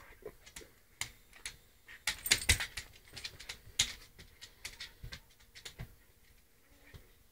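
A small poodle-mix dog's claws clicking and tapping irregularly on a hardwood floor as it pounces on and paws a plush toy, with a louder flurry of clicks about two seconds in.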